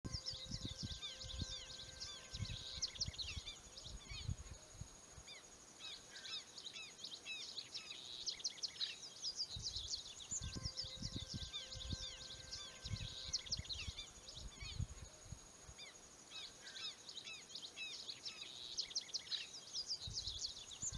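Many small birds chirping and twittering in overlapping bursts, over a low irregular rumble.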